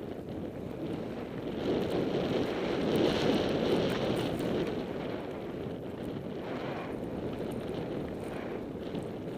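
Wind rushing over the microphone and skis scraping through chopped-up snow on a downhill run, swelling to its loudest about three seconds in.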